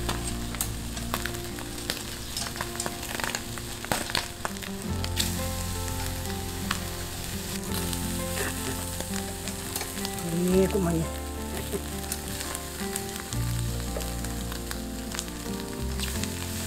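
Cutlassfish pieces sizzling on a metal grill over a charcoal brazier, with sharp clicks of metal tongs against the grate as the pieces are moved and turned.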